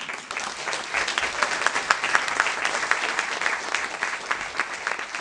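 Audience applauding, the clapping starting suddenly and holding steady.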